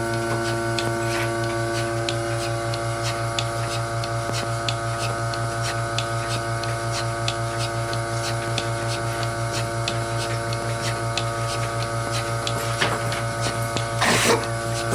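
Surge bucket milker running: a steady electric hum from the vacuum system with fast, regular clicking of the pulsator. A brief hiss near the end.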